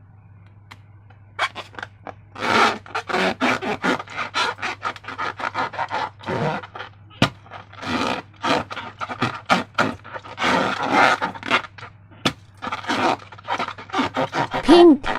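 Sticky slime being squished and worked by hand, giving quick irregular wet crackles and squelches that start about a second and a half in and keep going, with a short squeak near the end and a steady low electrical hum underneath.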